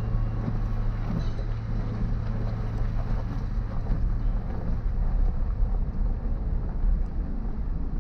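Vehicle driving on a dirt and gravel trail: steady engine and tyre rumble, with a low hum through about the first half that then fades.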